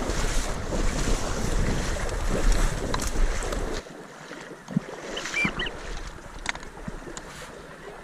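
Water sloshing and wind buffeting the microphone as hunters wade through marsh water after a wounded duck. The rumbling noise drops off suddenly about four seconds in, leaving quieter water sounds, a few light clicks and a brief high chirp.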